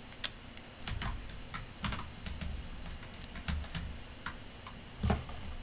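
Typing on a computer keyboard: irregular keystroke clicks, a sharp one about a quarter second in and a small cluster near the end.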